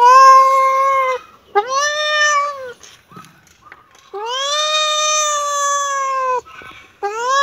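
Kitten meowing: four meows with short pauses between them, the third a long drawn-out one of about two seconds, the last beginning near the end.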